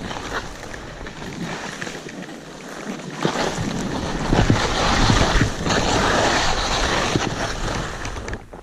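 Skis hissing and scraping over snow on a steep descent, with wind buffeting the microphone. The hiss grows loud about three seconds in and eases off near the end.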